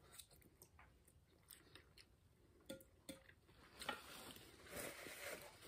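Quiet chewing of a mouthful of fried noodles, with scattered faint mouth clicks.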